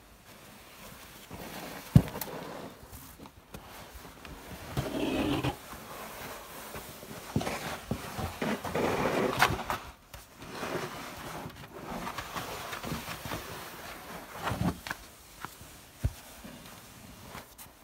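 Snow shovel scraping along the ground and scooping packed snow, in uneven gritty bursts of scraping and crunching snow. A sharp knock about two seconds in and a few lighter knocks later.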